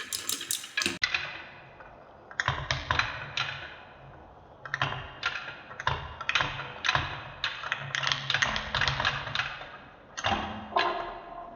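Glass marbles rolling and clattering down a wooden marble run: quick irregular clicks over a low rolling rumble, starting up a couple of seconds in after a brief lull.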